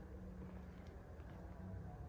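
Faint ambience of a large indoor hall: a steady low hum and rumble with a few soft ticks.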